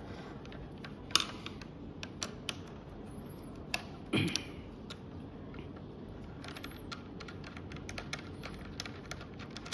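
Small metallic clicks and taps of a T-handle hex key working the bolt out of an e-bike's adjustable handlebar stem, scattered irregularly, with louder clicks about a second and about four seconds in.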